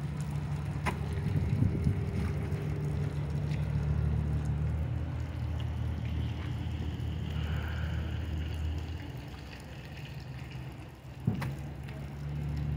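Steady low hum of an idling engine, easing off near the end, with a few sharp knocks as fish and gear are handled in a boat on its trailer; the loudest knock comes about 11 seconds in.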